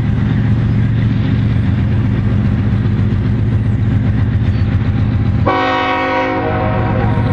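Heavy diesel locomotive engines running with a steady low drone. About five and a half seconds in comes one short multi-note air horn blast, lasting about a second.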